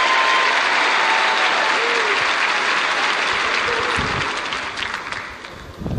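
Large studio audience applauding, dying away about five seconds in.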